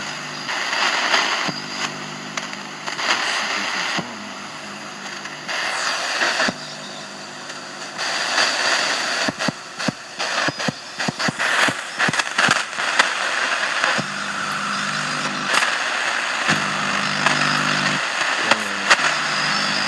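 Shortwave radio static with a weak digital signal that switches on and off in blocks, with low steady tones. In the middle comes a run of sharp clicks, like someone tapping a hand against a microphone, at a far-off station near 4200 kHz.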